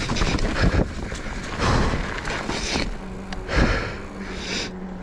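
A worn-out mountain biker breathing hard in several heavy, hissing breaths, with low rumbling wind buffeting on the microphone.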